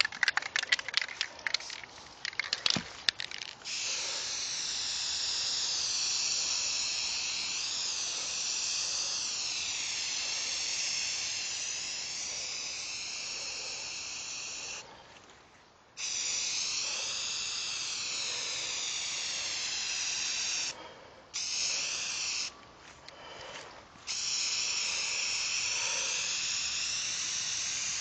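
Aerosol spray-paint can spraying through a fat cap: a steady hiss held for long stretches, with short breaks as the nozzle is let go. A few quick clicks come before the first spray.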